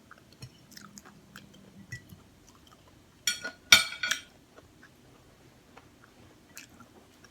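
Close-up mouth sounds of a person eating tacos: quiet chewing with small wet clicks, and a loud crunchy bite about three seconds in that lasts about a second.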